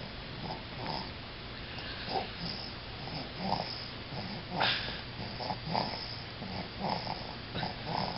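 Soft snoring in short, quick breaths, roughly two a second, with one louder, sharper breath about halfway through.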